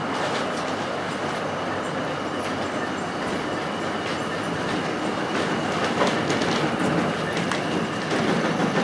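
O gauge model train running along the track: a steady rolling rumble of wheels with occasional sharp clicks, getting a little louder near the end.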